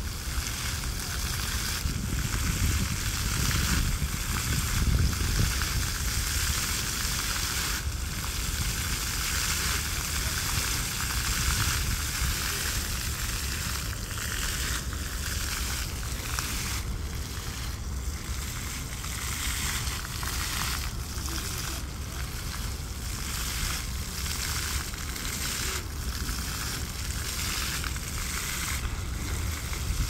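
Fountain jets spraying and water splashing down in a steady hiss, with a fluctuating low rumble underneath.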